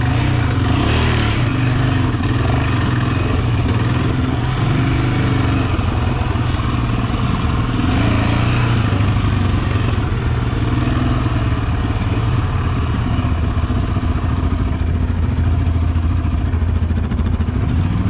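Yamaha Raptor 700 quad's single-cylinder four-stroke engine running steadily while riding on a dirt trail, its revs swelling a little now and then.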